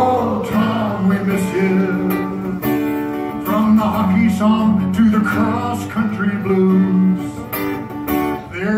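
Live solo acoustic guitar, strummed and picked chords changing about every second.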